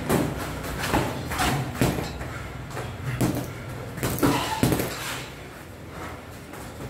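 Boxing gloves landing punches during sparring: irregular thuds and slaps, several in quick succession, with gaps between exchanges.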